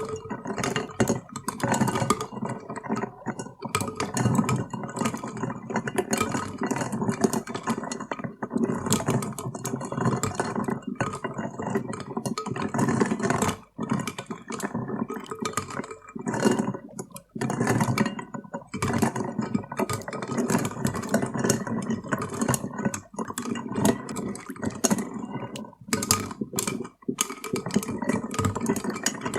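Ice cubes clinking and rattling against the side of a glass as a drink is stirred round. The clinks come as a continuous jumble of many small knocks, with a few short pauses.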